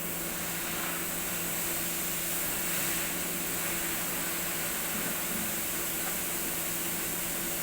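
Small electric all-purpose air pump switched on and running, with a steady hiss of blowing air over a low motor hum.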